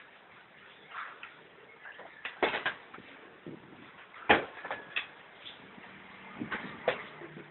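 Scattered knocks and bumps: a quick cluster about two and a half seconds in, the loudest single knock about four seconds in, and a few more near the end.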